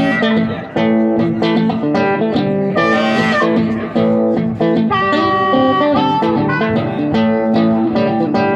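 Acoustic guitar and harmonica playing a blues instrumental passage: steady strummed guitar rhythm with the harmonica holding long notes and bending them.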